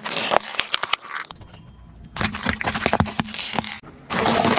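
Hollow plastic egg capsules cracking and snapping under a slowly rolling car tyre: a quick run of sharp cracks, a short lull, then a second run of cracks about two seconds in. Near the end a loud, gritty crunching noise starts abruptly.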